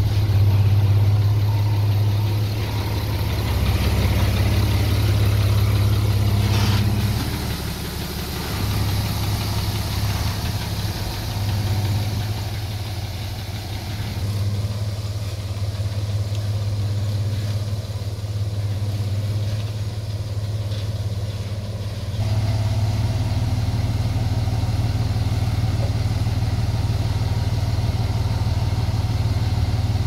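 Heavy diesel engine running steadily with a deep hum. It eases off a little about a third of the way in and picks up again about two-thirds through.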